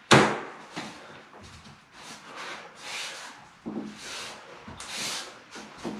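Waterproof click-together floor planks being fitted by hand: one sharp wooden knock right at the start, then a few softer knocks and scuffs as the planks are pressed and shifted into place.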